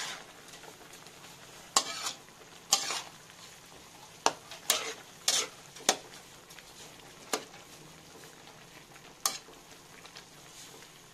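A slotted metal spatula scraping and knocking against a metal wok as diced pork and carrots are stirred, about eight sharp strokes at uneven intervals. Under the strokes runs a low, steady sizzle of the pork frying in its own juices.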